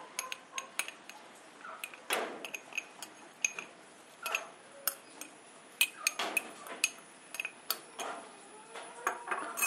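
A metal spoon clinking and scraping against a small glass bowl in light, irregular taps as spice powder is spooned out onto a glass plate.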